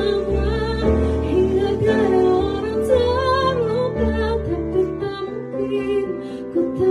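A woman singing a slow, tender ballad over a soft instrumental accompaniment. She holds long notes that waver and glide in pitch, without clear words.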